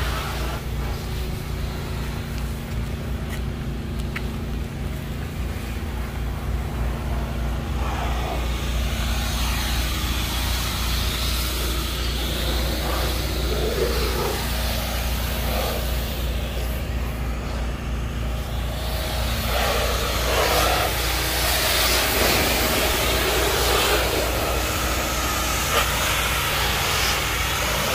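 Car engine running with a steady low rumble; the mix of vehicle sounds grows busier and slightly louder in the second half.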